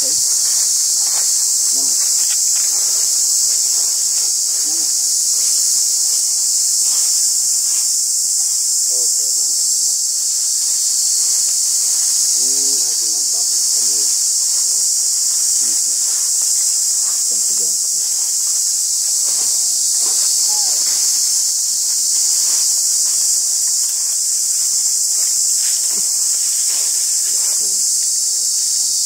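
A dense insect chorus making a steady, high-pitched drone, with faint scattered ticks beneath it.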